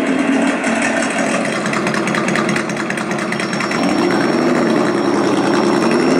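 Simulated truck engine sound from an ESS Dual engine-sound simulator played through its speaker, revving under throttle from the transmitter: it drops back around the middle and revs up again about four seconds in. It sounds a little distorted.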